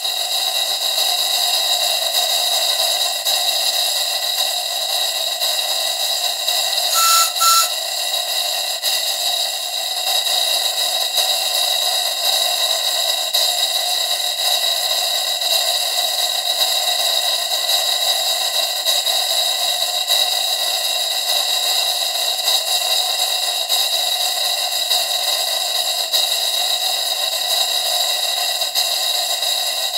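Brass chuff pot taking the exhaust of two model steam engines running on compressed air: a loud, steady, unpleasant exhaust noise that cuts in suddenly at the start as the hand comes off the chimney. A short tone with two clicks sounds about seven seconds in.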